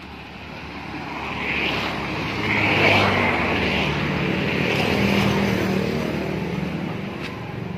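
A motor vehicle passing by: engine and tyre noise swells to its loudest about three seconds in, holds, then fades slowly.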